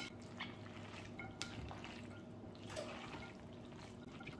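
A spatula stirring a wet tuna and macaroni salad in a glass bowl: faint squelching with a few light clicks against the glass.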